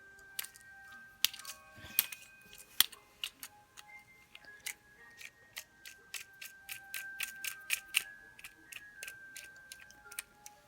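Sharp, irregular plastic clicks from a fidget cube's buttons and switches being worked, bunched closely from about a second in to about nine seconds, with faint background music.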